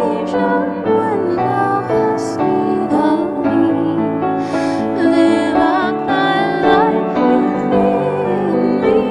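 A man and a woman singing a slow hymn as a duet in harmony, with piano accompaniment.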